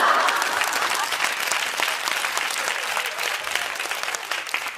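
Applause: dense, steady clapping that cuts off abruptly at the end.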